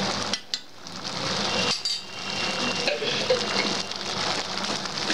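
Yellow-pea curry simmering in a pan on a gas stove: a steady bubbling hiss, with a light metallic clink about two seconds in that rings briefly.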